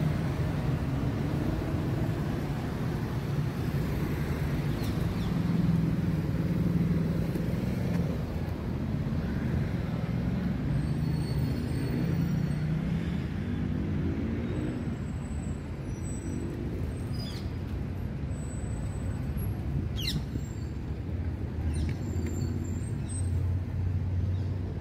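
Steady low rumble of city road traffic, with one vehicle engine rising in pitch about halfway through as it pulls away.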